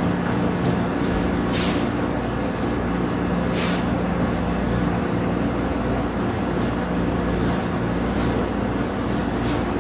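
Steady low hum of a vehicle's engine running, heard from inside, with a few faint brief hisses on top.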